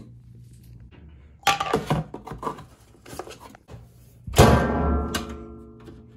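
Lid of a top-loading washing machine shut with a loud bang that rings with a metallic tone and dies away over about a second and a half. A shorter clatter comes about a second and a half earlier.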